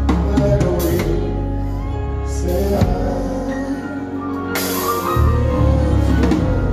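Live worship band music: held bass notes under a drum kit, with cymbal crashes about two and a half and four and a half seconds in.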